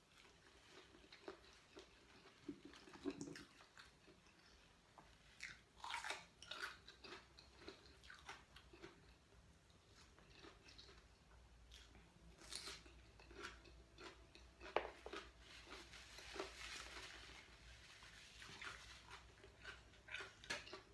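A person eating with her fingers, chewing quietly with wet mouth clicks and smacks and a few sharper bites. She is eating sticky rice with pounded pla ra fish-paste chili dip and raw vegetables.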